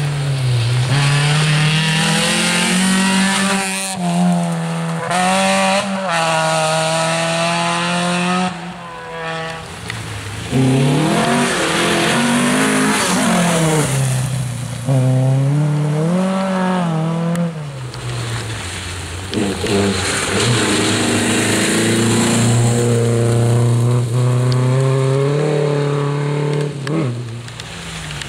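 Rally cars driven hard along a wet gravel stage, their engines revving up and falling back through gear changes and lifts as they pass one after another.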